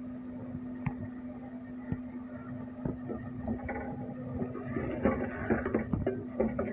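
A wooden spoon stirring thick daal in a metal pot, with short scrapes and knocks against the pot that start a few seconds in and grow busier near the end, over a steady low hum.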